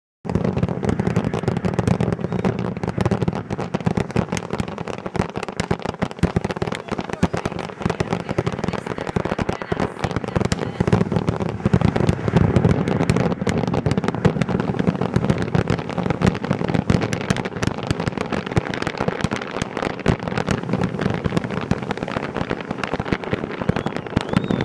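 Large fireworks display: a dense, continuous barrage of shell bursts and crackling, with no let-up.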